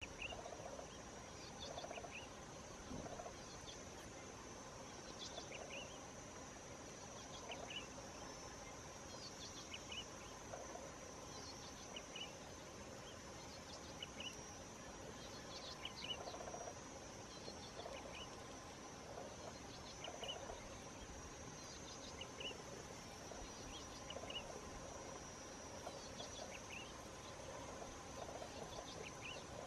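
Faint outdoor ambience: a steady high-pitched insect drone, with short chirping calls repeating every couple of seconds.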